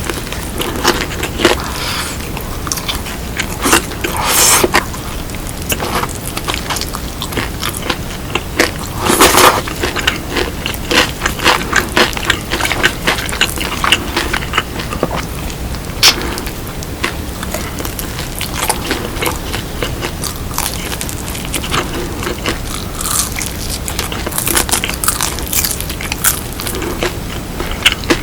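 Close-miked crunching and chewing of BHC Bburinkle seasoned fried chicken: repeated crisp bites with wet chewing in between, a louder run of crunches about nine seconds in.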